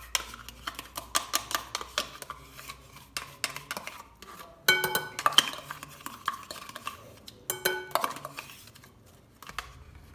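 A metal spoon scraping plain yogurt out of a plastic yogurt pot, with many quick clicks and taps against the pot and the glass mixing bowl. Two louder ringing knocks come about halfway through and a few seconds later, as the spoon strikes the glass bowl.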